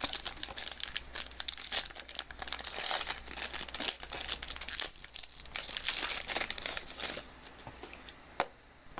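Plastic wrapper of a trading-card pack being torn open and crinkled by hand: a dense run of crackling that stops about seven seconds in, followed by a few faint single clicks.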